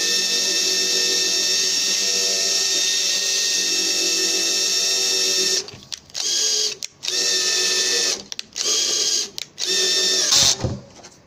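Power drill driving a screw into the edge of a composite panel: one long steady whine of the motor, then five short bursts as the screw is driven home in pulses.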